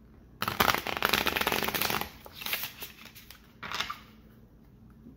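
A stiff new deck of Taco vs Burrito game cards being shuffled: a rapid run of card edges flicking for about a second and a half, then two short bursts of shuffling.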